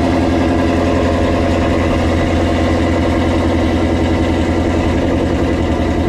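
Car engine idling loudly and steadily.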